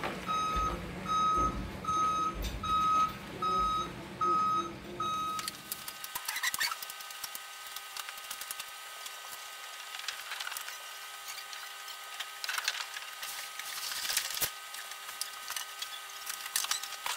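Background music ending on a high beeping note repeated about every half second for some five seconds, then a faint steady hum with scattered light clicks.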